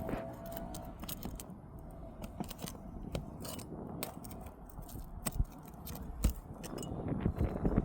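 Light scraping and scattered small clicks of hands and tools working on brittle asphalt roof shingles, loosening them to get at the nails.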